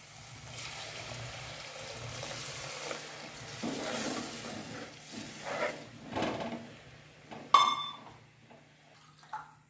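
Water poured into hot fried masala and coconut oil in a clay pot, sizzling with an even hiss for the first few seconds. Then a spoon stirs the thinned curry in scraping strokes, with one sharp ringing clink of the spoon against a vessel.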